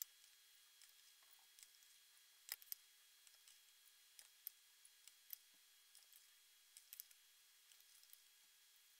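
Near silence, broken by faint, irregular small ticks and clicks.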